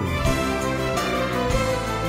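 Instrumental background music with sustained chords, the chord changing about three-quarters of the way through.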